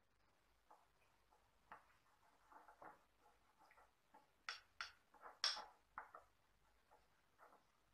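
Faint, irregular light clicks and taps of small kitchen handling, with three sharper clicks a little past the middle.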